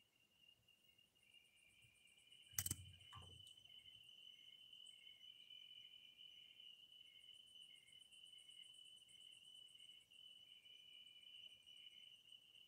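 Faint steady night insect chorus: a continuous high trill with a lower chirping that pulses about twice a second. A sharp knock about two and a half seconds in, followed by a softer one.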